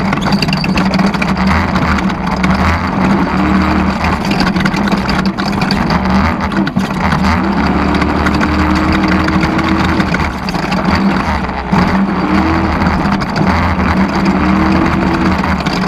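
Off-road race vehicle's engine running steadily under load over a loud rush of noise, its pitch rising briefly a few times.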